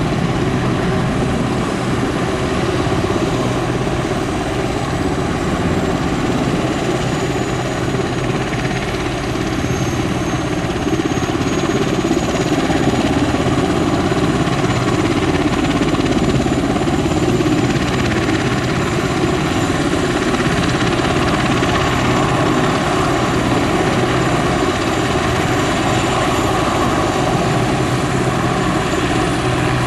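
Westland Sea King HAS.5 helicopter running on the ground during shutdown, its Rolls-Royce Gnome turboshaft engines and slowly turning rotor making a loud, steady noise. A thin high whine falls in pitch over the first ten seconds or so, then holds steady.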